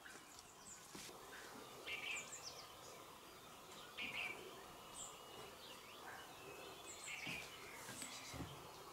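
Wild birds chirping faintly in short calls every couple of seconds, with a few thin high notes between them, over quiet open-air background.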